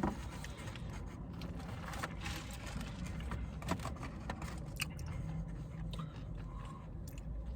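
Quiet eating sounds: faint chewing with scattered small clicks and rustles of food and packaging, over a low steady hum.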